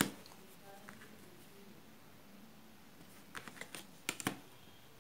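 Light clicks and taps of a steel ruler being handled and set down on paper over a hard tabletop: one click at the start, then a quick cluster of clicks about three and a half seconds in and another just after four seconds.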